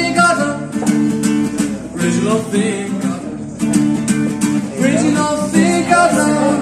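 Cutaway acoustic guitar being strummed while a man sings along, live and unamplified-sounding in a room.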